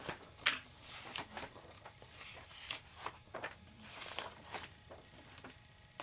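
Pages of a comic book being turned by hand: a run of short, irregular paper rustles and flicks.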